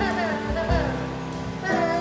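Background music: a song with a sung melody gliding over held instrument notes.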